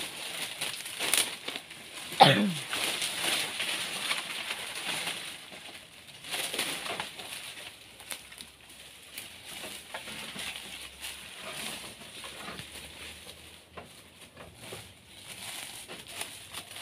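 Dry banana leaves rustling and crackling with scattered snaps and clicks as a man works in a banana plant. About two seconds in comes the loudest sound, a quick sweep falling sharply in pitch.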